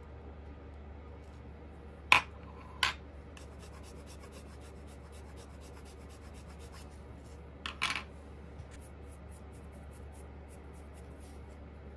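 Sharp clicks of hobby tools and plastic model-kit parts being handled: two loud clicks about two seconds in, two more near eight seconds, and faint ticking in between, over a low steady hum.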